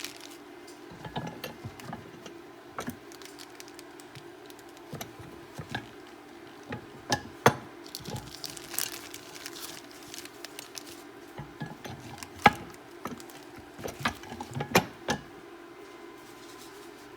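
Scattered light clicks and knocks from handling a tortilla press and flaxseed dough, over a low steady hum. The two sharpest knocks come a little before halfway and about three-quarters of the way through.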